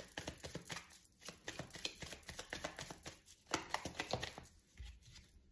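Oracle cards being handled on a table: a run of light, irregular clicks and flicks of card stock, fading out near the end.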